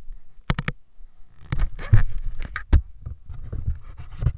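Handling noise from the camera: three sharp clicks about half a second in, then irregular rustling and low knocks as something rubs and bumps against it.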